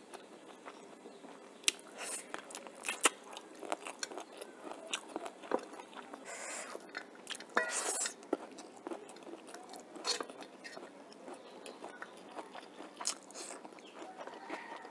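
A person chewing and crunching a mouthful of rice and chicken curry close to the microphone, with scattered sharp clicks throughout.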